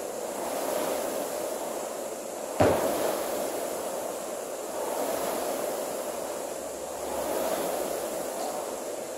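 Indoor rowing machine's air flywheel whooshing, swelling and fading with each stroke about every two seconds. A single sharp knock sounds about two and a half seconds in.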